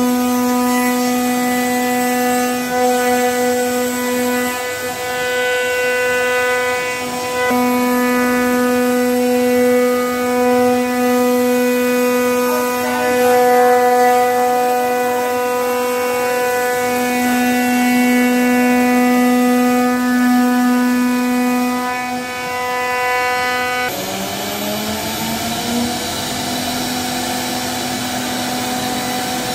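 CNC router spindle whining steadily as its bit cuts grooves into a wooden door panel. Near the end the whine drops abruptly in pitch and then climbs back up.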